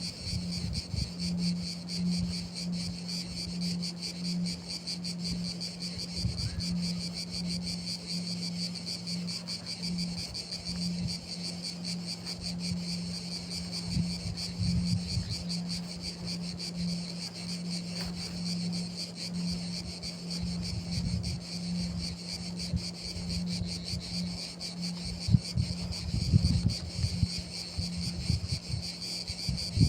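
Crickets trilling steadily in a high, finely pulsing chorus over a low pulsing drone, with occasional low thumps.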